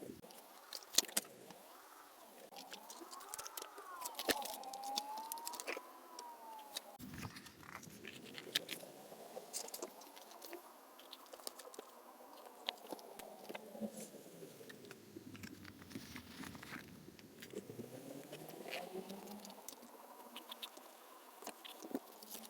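Close-up craft handling sounds from art journaling: a steady scatter of small clicks, taps and paper rustles.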